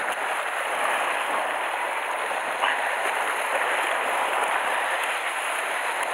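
Sea surf washing and churning over shore rocks, a steady rushing hiss, with one short click about two and a half seconds in.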